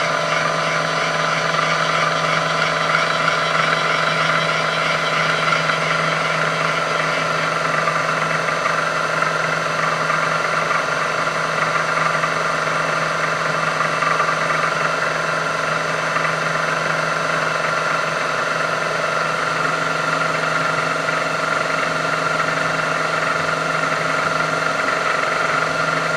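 Milling machine's motor and spindle running steadily with a constant hum and whine, turning a small spotting drill to start a hole.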